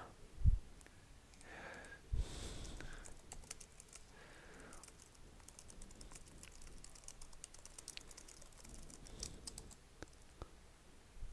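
Typing on a computer keyboard: a quick, faint run of key clicks lasting several seconds, after a couple of soft thumps near the start.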